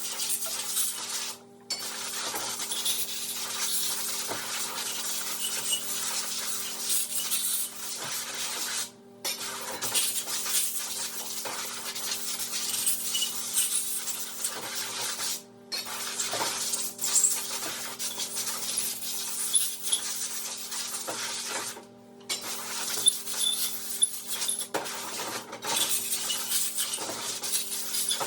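Metal clinking and scraping of hand work on a brake caliper being cleaned, over a busy hiss and a steady low hum. The sound drops out briefly several times.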